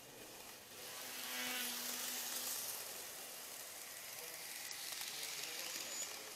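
N-gauge model trains running: a steady hiss and buzz of small wheels on the track and small motors, picked up close by the camera car's microphone. It grows louder about a second in, as another train runs alongside on the next track.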